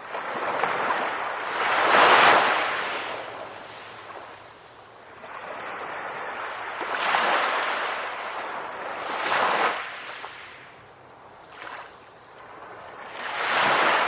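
Ocean waves washing onto a shore, the surf coming in swells that rise and fall every few seconds. The biggest wave breaks about two seconds in, more arrive around seven and nine seconds, and another builds near the end.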